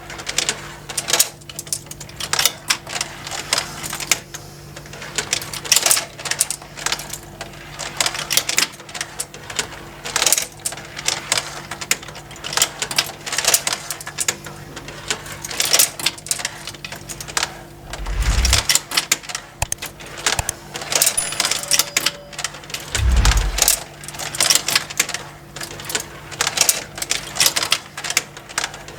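Motorised plastic marble-run toy running: marbles click and clatter irregularly along the plastic tracks and conveyor lifts over the steady hum of the small drive motor. Two dull low thuds, about 18 and 23 seconds in.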